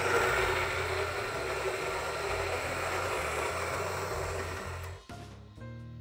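Rancilio Rocky burr grinder running, a steady whir as it grinds espresso beans into the portafilter, cutting off about five seconds in. Background music with guitar is left after it stops.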